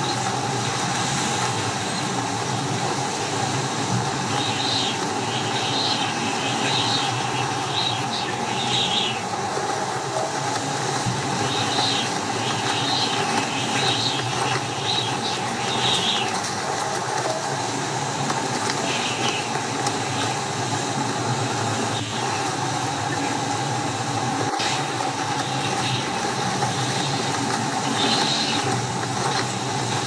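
Strong wind blowing in a steady rush, with short gusts of higher hiss coming and going every second or two.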